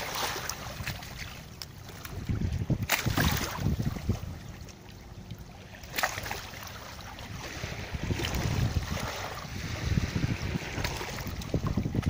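Small waves lapping and splashing over sand and pebbles at the water's edge, with wind buffeting the microphone in gusts.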